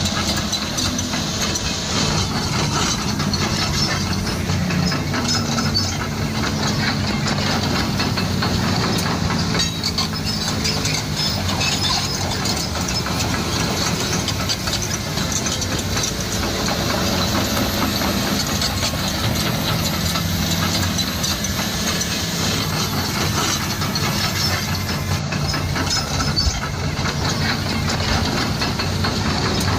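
A steady engine-like running noise with a low hum that slowly shifts in pitch.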